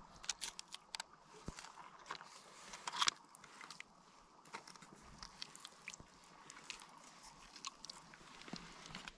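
Dog chewing on a wooden stick: faint, irregular crunching and cracking, with a louder cluster of crunches about three seconds in.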